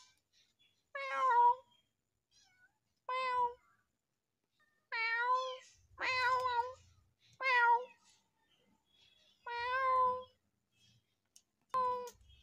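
A small stray kitten meowing repeatedly, about seven high-pitched meows, each under a second, with short pauses between them: the calls of a frightened kitten.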